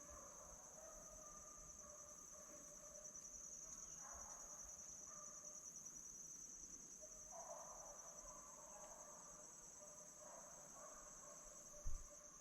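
Faint, steady high-pitched insect trill, with distant hunting hounds baying on and off underneath it. A low bump comes near the end.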